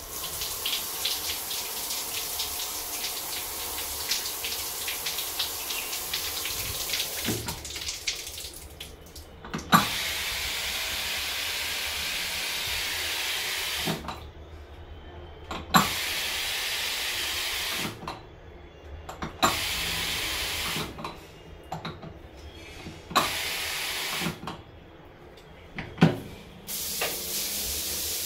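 Shower water running through a Gessi diverter valve, a steady spray hiss that cuts out and comes back several times as the diverter knobs are turned, each change marked by a sharp click.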